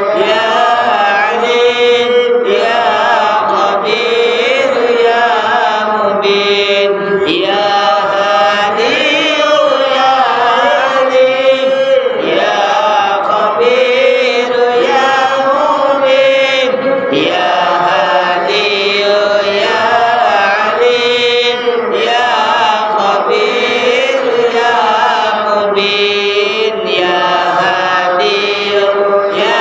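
Islamic devotional chanting of an istighosah: a continuous melodic vocal line in long phrases, with held notes that waver in pitch.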